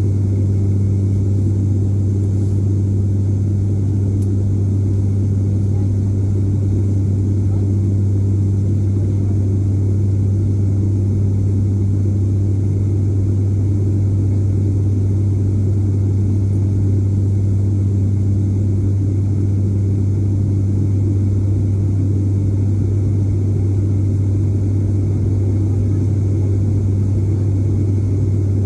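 Steady low drone of an ATR 72-600 turboprop's propellers and engines, heard inside the passenger cabin, with a constant hum and the rush of air around the fuselage.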